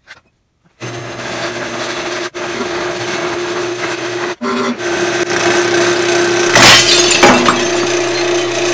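Wood lathe running with a steady motor hum and the scraping hiss of a gouge cutting a spinning glued-up alder handle blank. About six and a half seconds in there is a loud crack and clatter as the blank breaks apart and flies off the lathe, alder being a wood that turns poorly.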